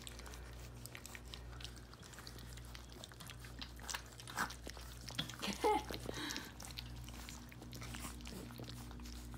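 Several puppies lapping, slurping and chewing gruel from a stainless-steel feeding pan: a busy run of small wet clicks and smacks, with a short squeak about six seconds in.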